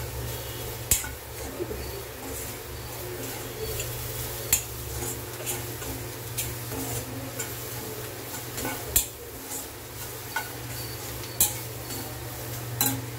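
Steel spoon stirring and scraping vegetables being stir-fried in a stainless steel kadai, with about five sharp clinks of the spoon against the pan. A steady low hum runs underneath.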